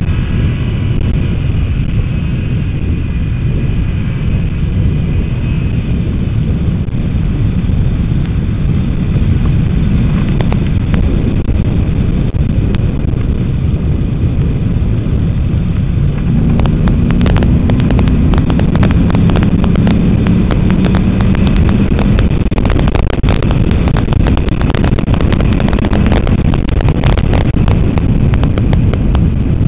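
Ford Mustang GT's V8 running at track speed under heavy wind buffeting on a front-mounted camera. About halfway through the engine note rises as the car accelerates, joined by a rapid crackle of clicks.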